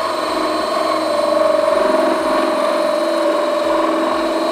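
Cordless drill running a hole saw at high speed through a plastic diesel fuel tank under light pressure: a steady motor whine with the saw cutting.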